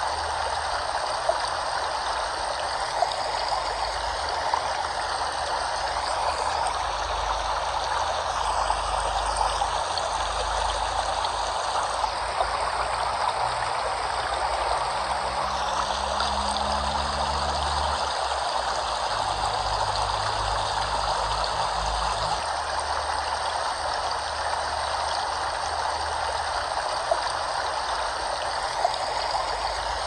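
Flowing water running steadily, an even rushing hiss with a low rumble beneath that swells and eases in stretches.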